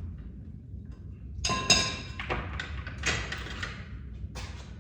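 Steel bike lock and cable clinking and rattling as they are handled, in about three short clattering bursts with a metallic ring, the sharpest about a second and a half in, over a steady low rumble.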